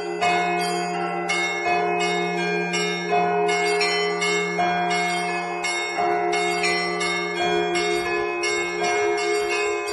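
Russian Orthodox church bells rung by one bell ringer: small bells chime quickly and densely over a heavier stroke about every second and a half, with a low bell humming continuously beneath.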